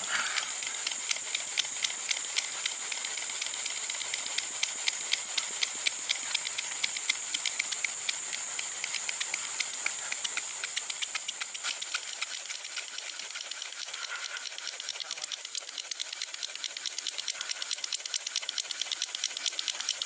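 A wooden stick rubbed fast back and forth against chaga fungus, a rapid, even scraping rhythm that eases a little past the middle and then picks up again. The friction is heating the chaga, which is already smoking, toward a glowing coal.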